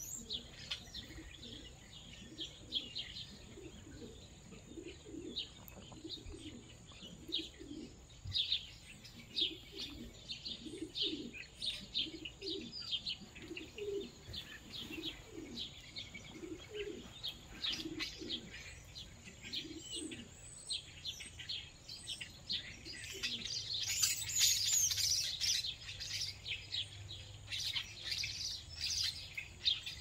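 Many small birds chirping in short, quick notes, with pigeons cooing in low repeated notes through the first two-thirds. A denser burst of high chattering comes about three-quarters of the way in.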